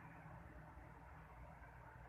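Near silence: steady low room hum and hiss.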